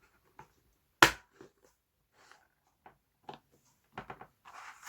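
Victorinox replacement parts case (4.0581) being handled and opened: one sharp snap of its latch about a second in, then a few softer clicks and taps.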